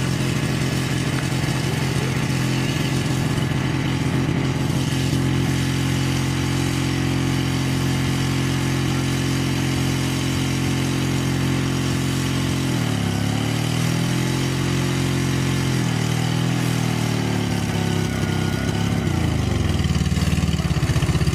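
Car engine held at steady high revs, then dipping and climbing back up twice in the second half.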